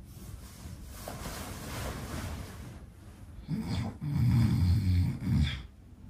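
A man's loud, deliberate fake snoring: a long soft breathy draw, then a loud low rattling snore starting about three and a half seconds in and lasting about two seconds.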